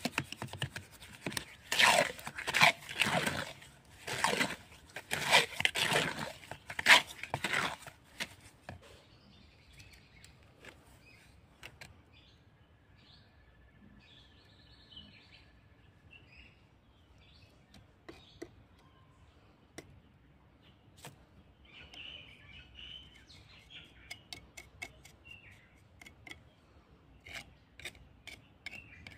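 A small trowel stirring and scraping wet grout mix in a plastic bucket, a run of loud rough strokes that stops about eight seconds in. Afterwards birds chirp faintly, with a few scattered clicks.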